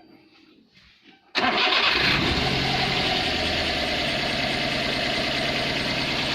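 Daihatsu Gran Max 1300 engine started, catching abruptly about a second in and settling into a steady idle. It is running with a misfire that makes the engine shake, caused by worn-out spark plugs.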